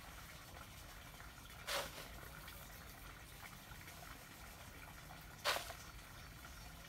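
Dry soil poured from a cut plastic bottle scoop, backfilling around a basil cutting's roots in a pot: two short rushes about four seconds apart.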